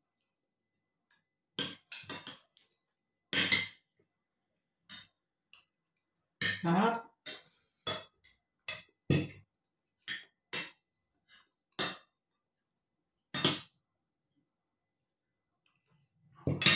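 Metal fork and spoon clinking and scraping on plates while eating, about a dozen separate short clinks spaced roughly a second apart, with quiet in between.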